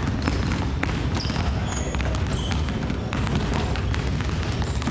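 Several basketballs being dribbled at once on a wooden gym floor, making many overlapping, irregular thuds that echo in the hall.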